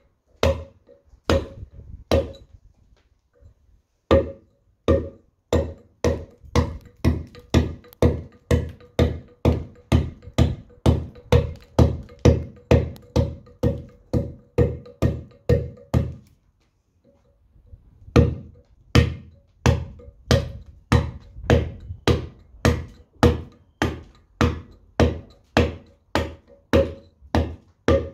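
A round-headed mallet drives a steel chisel into a stone panel, cutting a Roman numeral. The blows come steadily, about two a second, each a sharp knock with a short ringing note. They pause for about a second and a half just past the middle, then carry on.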